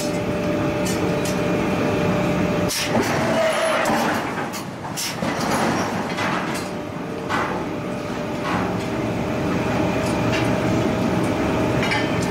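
Steady drone of heavy forging machinery, with scattered sharp metallic clinks and knocks as steel bars and tongs strike the punch set on a red-hot flange blank while it is centred. The drone thins out a little under three seconds in and comes back about eight seconds in.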